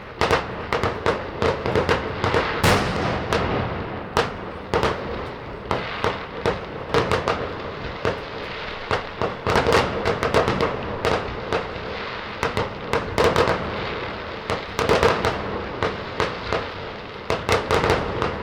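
A dense, irregular run of sharp pops and cracks over a continuous crackling din, several loud cracks a second.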